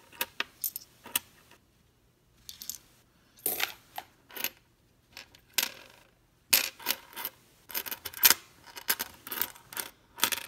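Lincoln cent pennies clinking against each other and onto a wooden tabletop as they are slid off a stacked roll a few at a time. Irregular sharp clicks, with a short lull about two seconds in and busier clinking in the second half.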